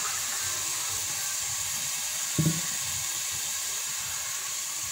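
Beef and masala sizzling steadily in a hot pot on the stove, with one brief low knock about halfway through.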